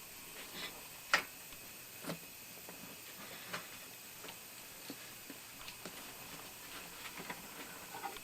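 Faint, irregular clicks and taps as a C-clamp and wood block are worked to press a stiff tire bead down over a lawn tractor wheel rim, with one sharper click about a second in.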